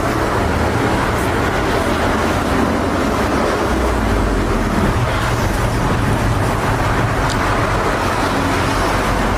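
Steady road traffic noise, vehicles passing on a busy road, with a low engine rumble that swells about four seconds in and again near the end.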